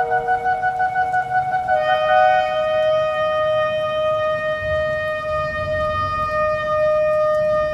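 Shofars (ram's horns) sounding long, steady blasts that overlap, two different notes at once. About two seconds in a new, slightly lower blast takes over and is held to the end.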